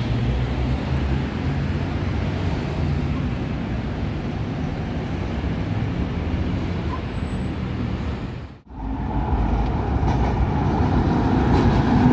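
City road traffic: cars and buses passing through a busy intersection as a steady low rumble. After a brief dropout about two-thirds of the way through, a louder steady hum as a tram passes close by.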